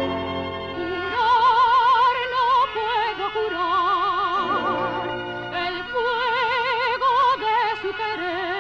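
Soprano and baritone singing a duet in operatic style with orchestra. Both voices hold long notes with wide vibrato, the higher line on top and the lower one beneath.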